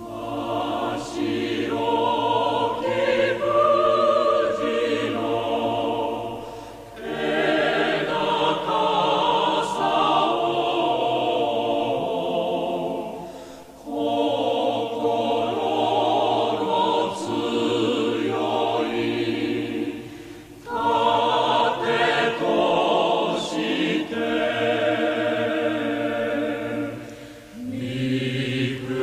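Choir singing a slow song in long sustained phrases, with a short break about every seven seconds.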